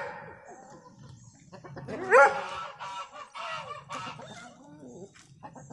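Domestic geese honking, with the loudest honk about two seconds in and more calls following.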